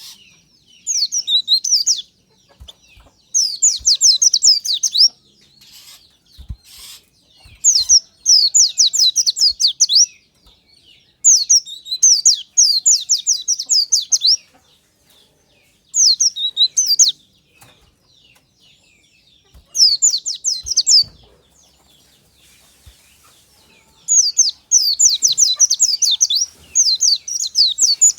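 White-eye (pleci) singing in repeated bursts of fast, high twittering chirps, each phrase a second or two long with short pauses between.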